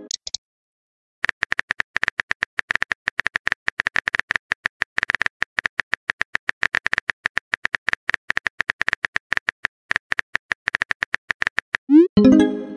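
Texting-app typing sound effect: a long run of rapid keyboard clicks, each with a slight tone. Near the end comes a short rising pop, the chime of a chat message appearing.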